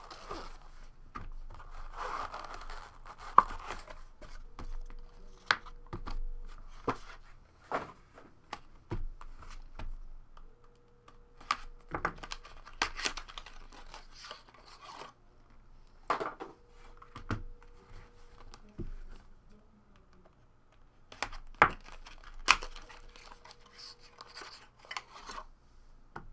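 Hands unpacking a box of trading cards: foam and cardboard rubbing, paper wrappers rustling and tearing, and hard plastic card cases clicking against each other and the tabletop. Sharp clicks are scattered throughout.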